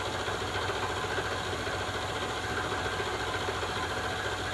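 Vertical knee mill's spindle running while its cutter takes a light climb cut along the end of a block, the table fed by hand: a steady machining sound with a fine, rapid pulse of the cutter teeth, throwing a nice even chip.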